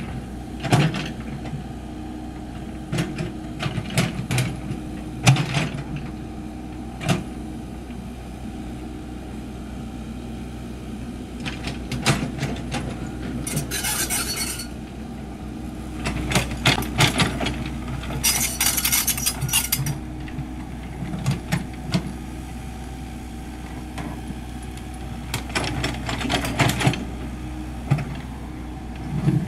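Komatsu PC78US mini excavator digging soil: its diesel engine runs steadily while the steel bucket scrapes and knocks, with many sharp clanks. Two short spells of high hiss come about a third and two thirds of the way through.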